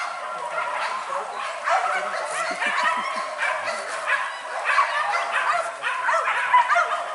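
A pack of hunting dogs yelping and barking together, many short high calls overlapping without a break.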